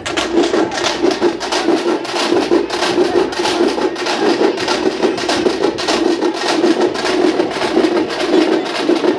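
Loud, fast rhythmic drumming, a dense run of strokes.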